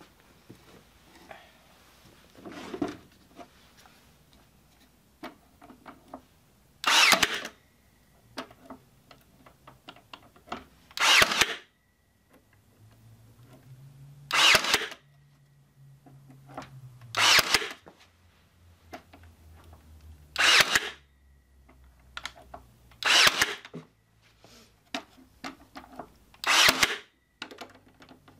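Ryobi 18-volt cordless brad nailer driving brad nails through pallet boards into plywood: seven short, sharp shots about three seconds apart, starting about seven seconds in.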